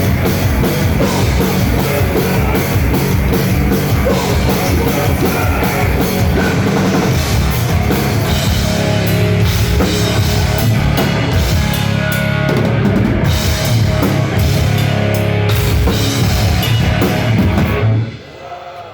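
Heavy metal band playing live at full volume, with a pounding drum kit and guitar; the sound drops away suddenly near the end.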